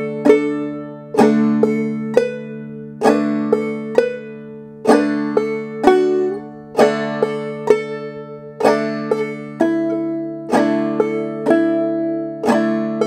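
Banjo played clawhammer style in double C tuning with a capo at the second fret. It is a slow, even practice run of the opening of a tune's B part, with about one strong strike a second and lighter notes between. About six seconds in, a slide goes up the first string.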